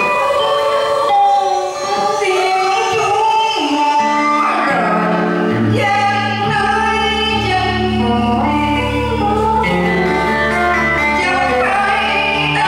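A song with singing over instrumental accompaniment; a bass line comes in about four and a half seconds in.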